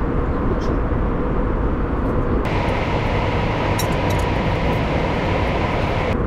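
Steady airliner cabin noise, a low rumble with hiss. About two and a half seconds in it changes abruptly to a brighter hiss with a faint steady hum.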